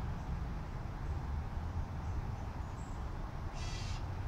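Steady low outdoor rumble, with one short raspy bird call of about half a second near the end and a few faint, high, brief chirps.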